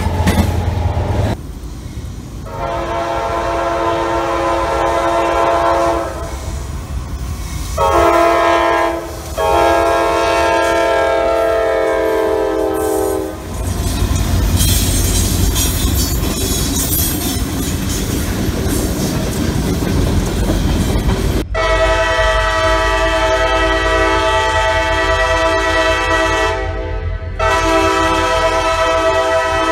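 Freight locomotive's multi-chime air horn sounding a long blast, a short one and another long one, in the pattern of a grade-crossing signal. The train then rolls by, its wheels clacking over the rail joints with a rumble and a high hiss. About two-thirds of the way in the sound cuts suddenly to another locomotive horn chord, held for several seconds with a brief break near the end.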